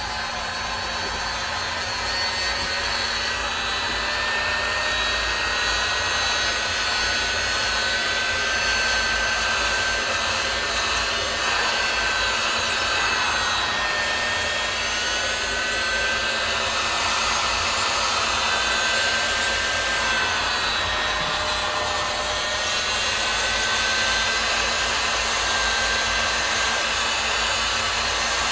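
Hot-air blower running steadily, heating the phone's front glass to soften the 3M adhesive that holds it on. Its rushing sound builds up over the first second or two, then holds, with a faint whine that wavers in pitch.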